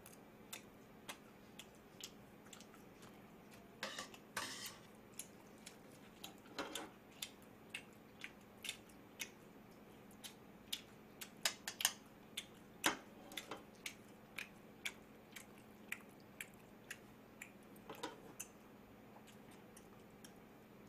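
Close mouth sounds of a man chewing grilled beef: soft wet clicks about twice a second, with a few louder, longer smacking bursts.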